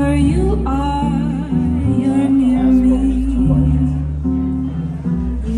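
A woman singing into a microphone, holding long notes, accompanied by plucked archtop guitar and upright double bass.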